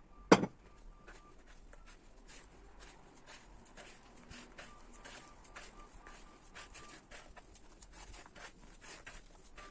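Soft yeast dough with mashed potato being kneaded by hand in a plastic bowl: faint, irregular squishing and patting strokes. A single sharp knock, the loudest sound, comes just after the start.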